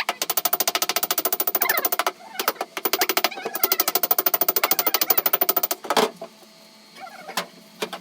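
A power tool hammering rapidly and evenly, about fifteen strokes a second, in two runs: the first stops about two seconds in, the second starts again shortly after and stops near six seconds with a single knock.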